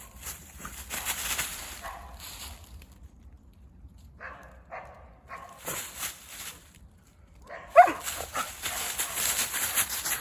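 Footsteps crunching through dry fallen leaves in three stretches of crackling. A dog gives a short whine about eight seconds in, the loudest sound, with a few fainter whimpers a little before it.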